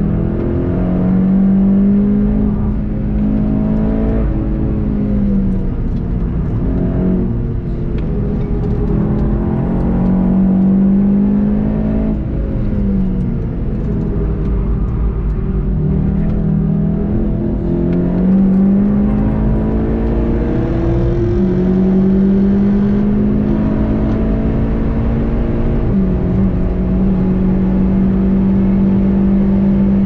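VW Golf 7.5 GTI TCR's turbocharged 2.0-litre four-cylinder engine heard from inside the car, revving up hard under acceleration and dropping back as it lifts off for corners. Near the end it pulls through two quick upshifts, its pitch falling sharply at each shift and then climbing again.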